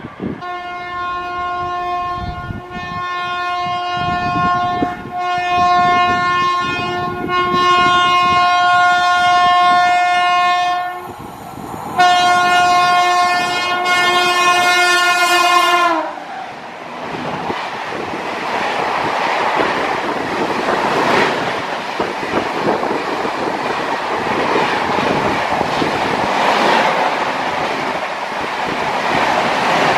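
Indian Railways express locomotive horn blowing one long blast of about eleven seconds, then after a brief pause a second blast of about four seconds that sags in pitch as it cuts off. The train then runs past at high speed, a loud steady rush of wheels clattering on the track.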